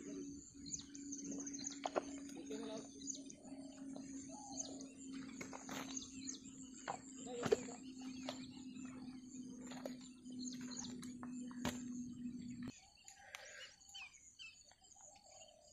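Birds chirping over a steady low hum, with scattered short clicks and ticks and one sharp knock about seven and a half seconds in. The hum and clicking stop abruptly near the end, leaving only faint bird calls.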